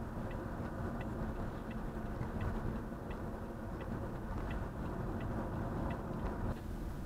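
A car's turn signal clicking steadily, about three ticks a second, as the car merges to the right. Steady road and engine noise heard from inside the cabin.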